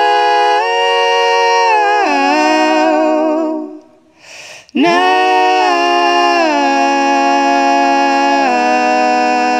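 A woman's voice singing a cappella, without words: long held notes with vibrato, a short breath about four seconds in, then sustained notes stepping down in pitch.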